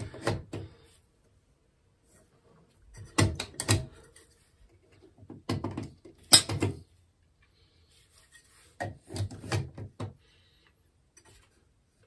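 Short clusters of plastic clicks and knocks, four times: a white plug-in device being pushed into and pulled out of a newly installed GFCI wall outlet, with one of the outlet's buttons pressed.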